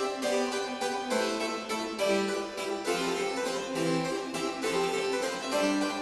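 Baroque-style harpsichord music, a quick run of plucked notes.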